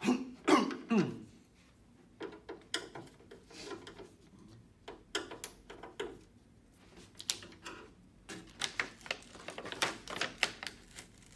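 Irregular light clicks and scrapes of a screwdriver tip working against the LED backlight strips and metal panel of a flat-screen TV. Near the end comes a denser run of crinkling and rustling as the thin plastic reflector sheet is lifted.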